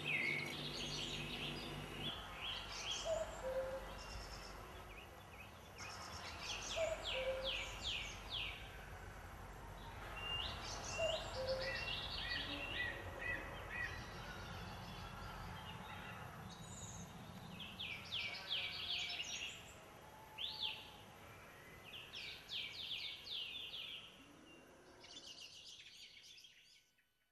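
Songbirds singing: short phrases of quick, descending notes repeated every few seconds, with a few lower notes in between, over faint steady background noise. The birdsong fades out near the end.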